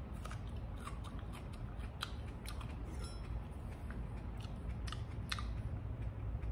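A person biting and chewing a raw Jay's Peach Ghost Scorpion chili pod. Its crisp flesh gives a scatter of short crunchy clicks that stop about five seconds in, over a low steady hum.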